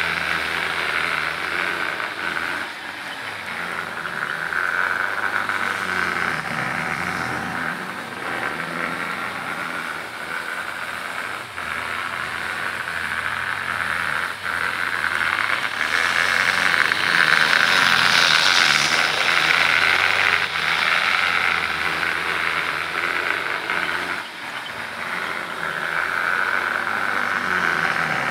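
Bachmann HO scale model freight train running on its track: the locomotive's small electric motor whines steadily while the wheels click over the rail joints. It grows louder for several seconds past the middle and again near the end as the train comes round close by.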